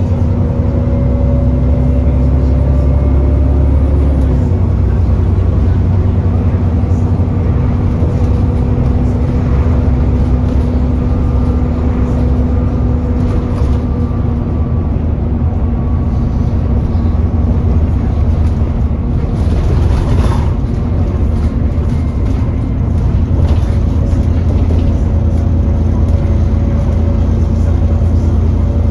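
Alexander Dennis Enviro400 E40D bus running, its diesel engine rumbling under a loud steady whine from the cooling fan, the 'hoover'. The whine rises slightly over the first few seconds, then drops a little and holds. Such a fan running hard is typical of the engine overheating.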